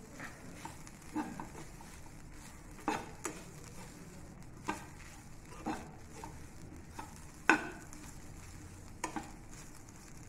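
Metal spatula stirring grated coconut in a non-stick kadai. The coconut shuffles softly while the spatula knocks and scrapes against the pan at irregular intervals of a second or two. The loudest knock comes about seven and a half seconds in.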